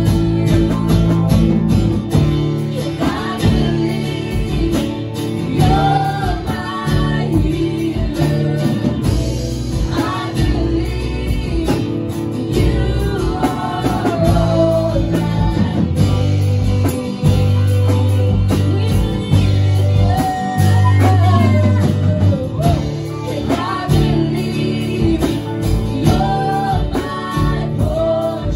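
Live praise-and-worship music: women singing into microphones over acoustic and electric guitars and a drum kit.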